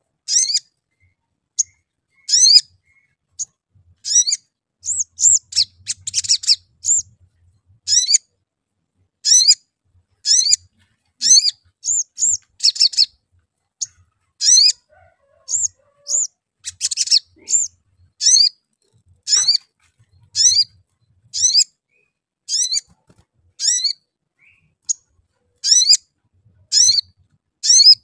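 Male olive-backed sunbird calling: short, high 'cuit' chirps repeated about once or twice a second, broken twice by a brief rapid chattering run.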